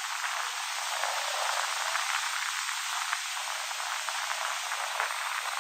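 A steady, even hiss with faint crackling and no low end.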